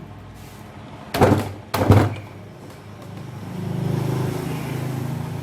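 Two sharp knocks, then a power screwdriver running steadily with a fast buzzing pulse, undoing the tight side-casing screws of a Bosch 11E demolition hammer.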